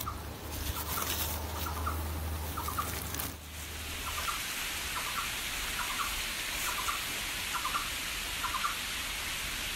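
An unidentified creature calling a short 'cút cút cút', two or three quick notes per call, repeated about once a second over a steady hiss.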